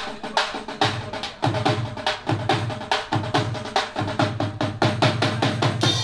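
Fast drumming: a quick, steady run of sharp drum strikes with a ringing pitched drum tone, punctuated by repeated low bass-drum thumps. The playing stops sharply at the end.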